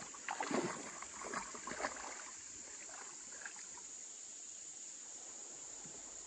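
Shallow river water sloshing and splashing around a wading child's legs for the first couple of seconds, then settling. A steady high insect buzz runs underneath.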